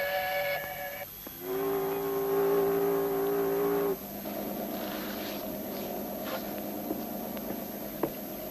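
Two long, steady horn tones, the second lower and about two and a half seconds long, ending abruptly. Then a motor runs steadily, with a few light knocks.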